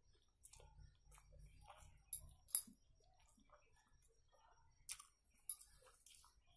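A person eating rice and curry by hand: faint chewing and mouth smacks, with a few sharp clicks, two around two seconds in and two about five seconds in.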